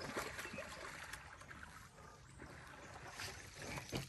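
Water sloshing and splashing around a small fishing boat, with a few faint knocks and clicks.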